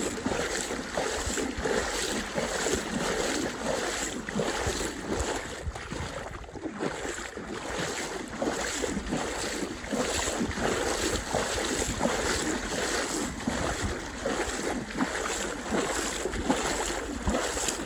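Footsteps wading through shallow water over a soft sediment bar, a steady splash of steps about two a second.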